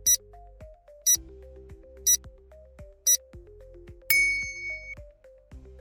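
Quiz countdown sound effects over soft background music: a short high tick once a second, four times, then a bright bell-like ding about four seconds in that rings for nearly a second, marking the end of the guessing time.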